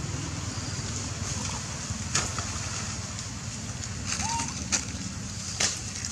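Macaques moving through a shallow duckweed pond and over dead branches: a few sharp snaps and small splashes over a steady low rumble. There is one short chirp about four seconds in.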